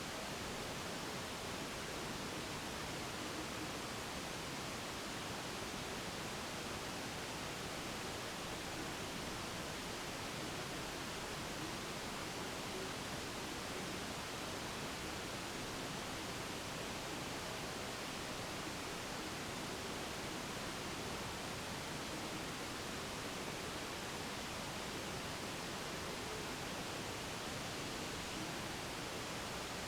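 Steady, even hiss of a quiet room, with no distinct knocks, creaks or ringing standing out.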